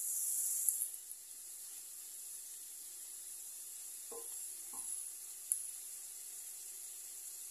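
Purslane and onion sizzling in oil in a stainless steel pan: a high hiss, loudest for about the first second as the lid comes off, then steady. A wooden spoon stirring gives two short scrapes against the pan about four seconds in, followed by a light click.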